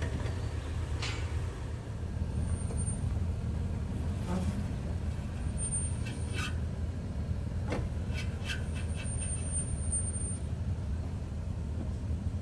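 A 2018 Toyota 4Runner TRD Pro's V6 engine running at low speed over a rough trail, a steady low rumble with scattered clicks and knocks.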